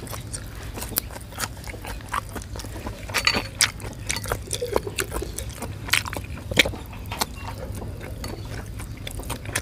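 A person eating pork blood soup (lueat plaeng) with a metal spoon: wet slurps, chewing and mouth smacks with scattered clicks, over a low steady hum.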